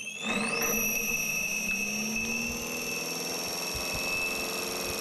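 The north-side armature of a CR-Kromrey converter spinning up. A high whine rises in pitch over the first half second and then holds steady, while a lower hum climbs over the next couple of seconds.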